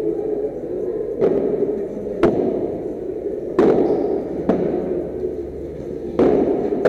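Padel rally: a ball struck back and forth with padel rackets, five sharp hits about a second apart, echoing in an enclosed hall.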